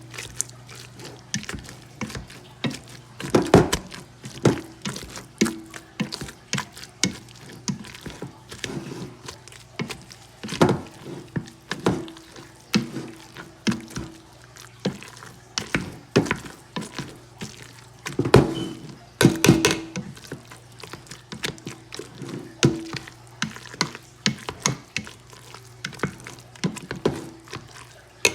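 Potatoes being mashed in a pot by hand: a masher squelching through them and knocking irregularly against the pot, with a few louder clusters of thunks.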